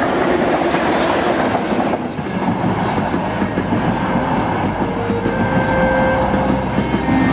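Passenger train passing close by at night, a loud steady rush of rolling stock on the rails. About two seconds in, the sound changes to a train running over an overhead bridge, and held musical notes fade in over it near the end.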